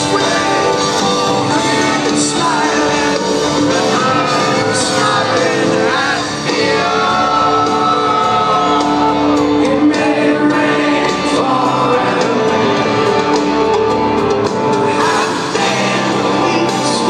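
Live rock band playing in a large hall, recorded from within the audience, with singing and shouts over the music.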